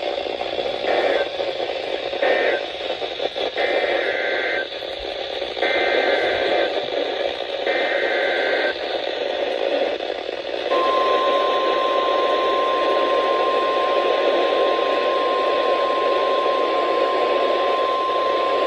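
NOAA Weather Radio transmission received weakly through steady static hiss. It carries two short warbling data bursts that end the previous message, then the three longer SAME header data bursts of a new alert, each about a second long. About 11 seconds in, the steady 1050 Hz weather-radio warning alarm tone starts and holds.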